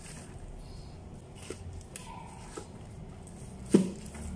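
Cardboard picture cutouts on bamboo sticks being shuffled in their holders: light rustling and scattered taps, with one sharp knock near the end.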